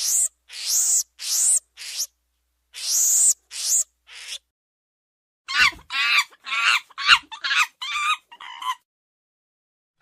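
Monkey calling: a run of about six harsh screeches over the first four seconds, then, after a short pause, a quick series of about eight higher, clearer calls that stops a little before the end.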